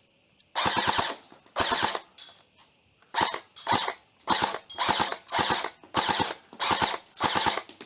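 Jing Gong T3 airsoft rifle firing about eleven short bursts, each a quick run of rapid mechanical clacks of the gun cycling, with brief gaps between them.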